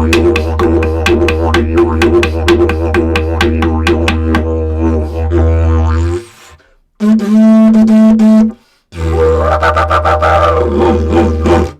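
Didgeridoo being played: a low drone driven with a quick rhythmic pulse. It breaks off about six seconds in, a higher held note sounds for about a second and a half, then the drone returns and stops at the end.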